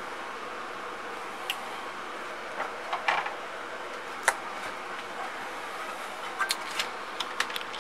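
Steady background hiss with scattered light clicks and taps of small parts and tools being handled on the workbench, one sharper click about halfway through and a run of clicks near the end.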